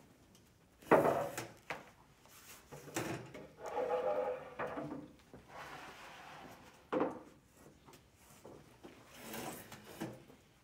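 Knocks and rubbing from the cloth backdrop and pipe frame of a puppet stage being handled and adjusted: a sharp knock about a second in, rubbing and shuffling through the middle, and another sharp knock about seven seconds in.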